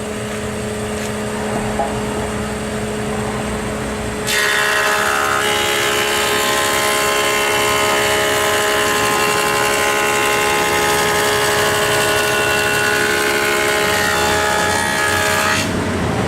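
Rockwell Delta 22-101 thickness planer running with a steady hum, then about four seconds in a board of old skid wood feeds through and the cutterhead cuts for about eleven seconds, much louder with a dense high whine, before the machine drops back to its free-running hum near the end.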